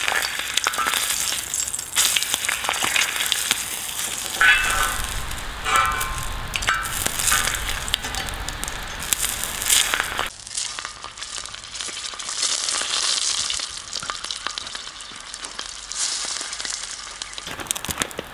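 Onion half on a fork sizzling and crackling in smoking-hot oil as it is rubbed around a heavy steel saj pan made from a harrow disc, with some scraping on the steel. The oil is being burnt onto the pan to season it.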